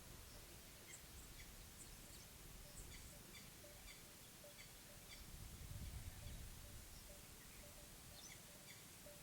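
Faint outdoor mountain ambience: scattered short bird chirps over a low rumble that swells about five to six seconds in, with a soft low note repeating now and then.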